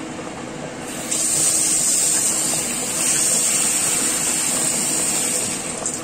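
Chicken wings sizzling in a reducing Coca-Cola sauce in a wok: a steady hiss that grows louder about a second in and drops away near the end, over a steady low hum.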